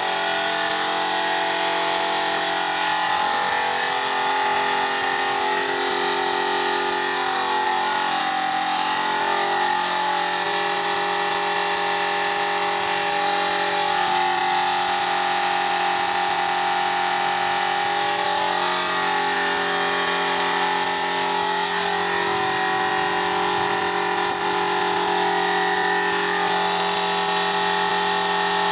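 Compressed-air paint spray gun hissing steadily while spraying, with a steady machine hum underneath.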